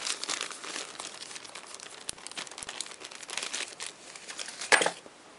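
Thin plastic parts bag crinkling and crackling as it is handled, with small metal parts shifting inside; one louder crackle comes near the end.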